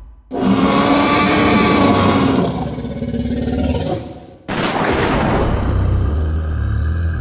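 Dinosaur roar sound effect for an animated Tyrannosaurus rex. One long roar starts suddenly and fades away, then a second, deeper roar with a low rumble breaks in about four and a half seconds in.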